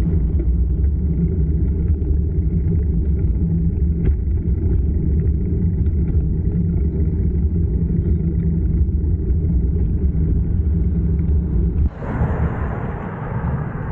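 Steady low rumble of wind buffeting the microphone of a camera carried on a moving bicycle. About twelve seconds in it drops and gives way to a lighter, brighter hiss.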